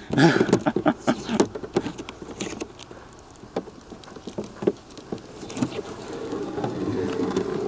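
Scattered light clicks and taps of objects being handled on a table, with a faint low murmur growing toward the end.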